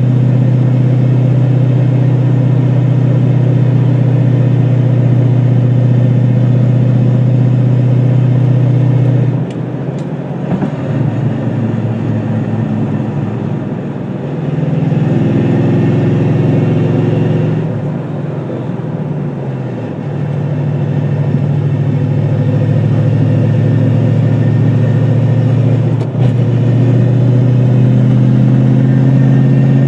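2002 Mustang GT's 4.6-litre V8 running at a steady speed. About nine seconds in the pitch drops, around fifteen seconds it climbs and then falls back, and from about twenty seconds it holds steady again.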